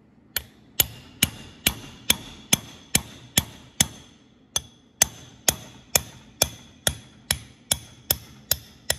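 Steady hammer blows, about two a second with one brief pause near the middle, each with a bright metallic ring: the broken PTO shift shaft of an Allis-Chalmers WD-45 being driven inward into its PTO gearbox housing.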